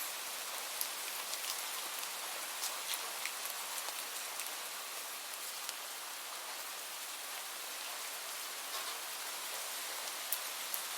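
Light rain falling steadily, a soft even hiss with scattered close drops ticking on a surface.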